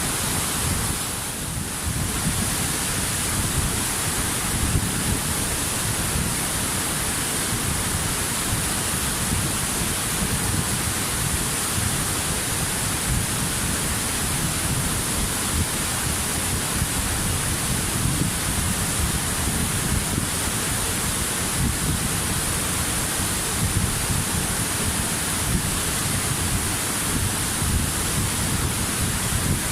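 Waterfall: a steady, unbroken rush of falling water that dips briefly about a second in.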